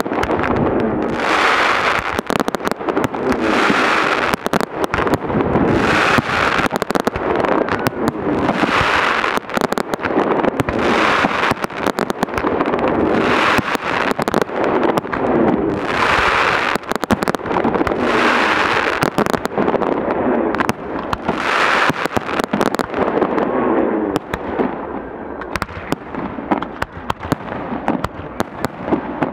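Fireworks display: a dense, continuous barrage of bangs and crackling, with a rushing burst about every two seconds. The rushing bursts stop in the last few seconds, leaving scattered bangs.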